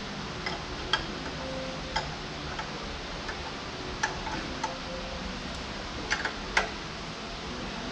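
Scattered sharp metallic clicks and clinks as a wrench works on steel hydraulic hard-line fittings of a tractor loader, at uneven intervals, over the steady hiss of a shop fan.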